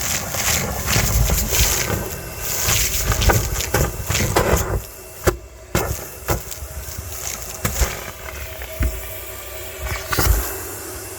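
Car wash vacuum cleaner running, its hose sucking in uneven rushes with a low rumble and scattered sharp knocks, briefly dropping off about halfway through.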